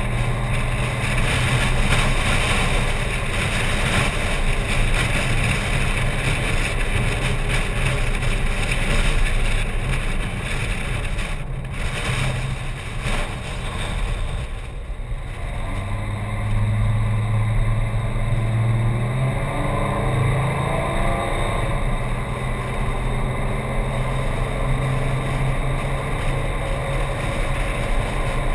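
Car engine and rushing wind heard from a hood-mounted camera while driving. The sound eases off as the car slows a little before halfway, then the engine note rises as it pulls away and settles into steady cruising.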